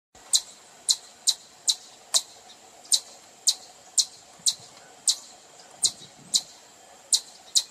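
A chipmunk's repeated sharp, high-pitched chip calls, about two a second in a slightly uneven rhythm, the chipmunk's typical alarm calling.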